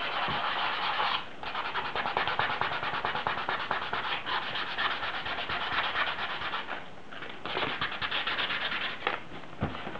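Wet 500-grit sandpaper being rubbed by hand over a molded plastic motorcycle hand guard in rapid short strokes, a steady gritty scratching. It pauses briefly about a second in and again around seven seconds in.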